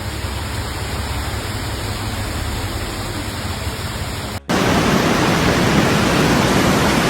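Rushing floodwater, a steady roar. About four seconds in it cuts abruptly to a louder stretch of the same kind of roar.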